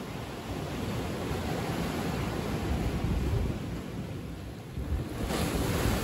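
Ocean surf washing in over sand among shoreline rocks, swelling and easing. A fresh wave washes in with a hiss near the end.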